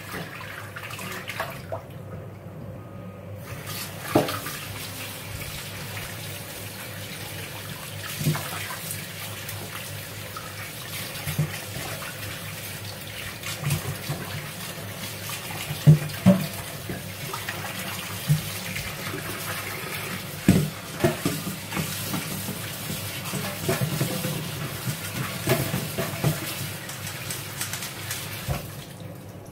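Water from a kitchen tap running into a stainless steel sink and splashing over pork pieces being rinsed by hand and in a metal colander, with occasional short knocks and clinks. The water briefly stops about two seconds in and starts again a second or so later.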